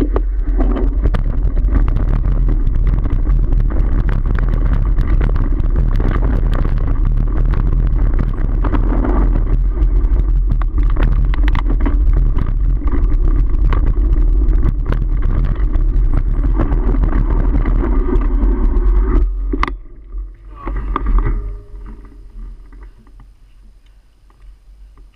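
Mountain bike ridden on a dirt trail: wind buffeting the microphone with a heavy rumble, tyres rolling over dirt and stones, and a rapid run of clicks and rattles from the bike over bumps. About three-quarters of the way through, after a sharp knock, the noise drops away as the bike slows, leaving only a short scrape and faint rolling.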